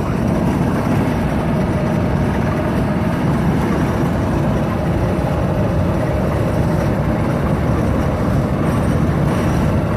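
Car driving along a road, giving a steady, continuous mix of engine and road noise with no distinct events.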